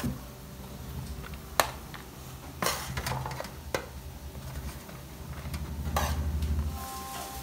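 A metal spoon scooping cooked basmati rice out of an aluminium pot into aluminium trays, with a few sharp clinks of the spoon against the metal, over a faint sizzle of frying.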